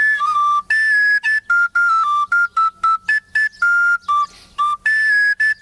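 A wooden end-blown flute (sopilka) playing a brisk tune of short, separately tongued notes with a few longer held ones, stepping up and down among a handful of high pitches.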